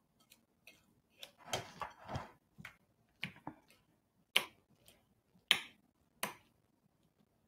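A metal utensil mashing cubed avocado in a ceramic bowl: irregular clinks and soft scrapes against the bowl, with three sharper clinks in the second half.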